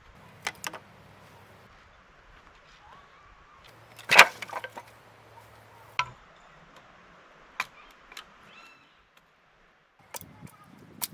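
Firewood being broken up for a campfire: sharp wooden cracks a second or two apart, the loudest about four seconds in, then a quick run of cracks near the end.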